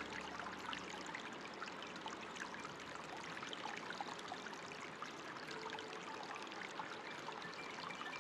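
Steadily flowing, trickling water, like a small stream or a spout pouring into a pool, full of tiny splashes. A few soft, faint music notes come in about two-thirds of the way through.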